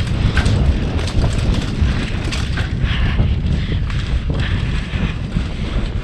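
Mountain bike riding fast down a dirt forest trail: wind buffeting the camera's microphone as a heavy rumble, with tyre noise on the dirt and frequent rattles and clicks from the bike over rough ground.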